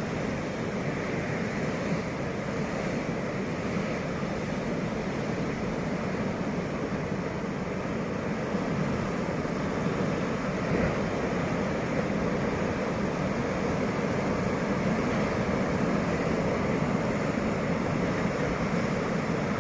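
Sea surf breaking on a rocky shore, a steady wash of waves with wind, growing a little louder in the second half.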